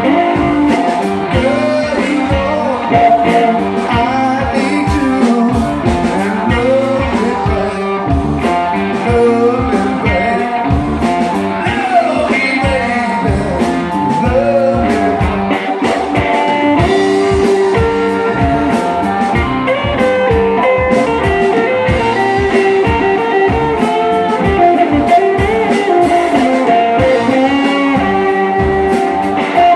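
A live band playing loud blues-rock: electric guitars, bass guitar and a drum kit keeping a steady beat.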